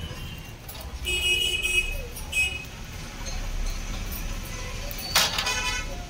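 Steady low street-traffic rumble with short vehicle-horn toots, the longest about a second in, and a sharp click followed by another toot near the end.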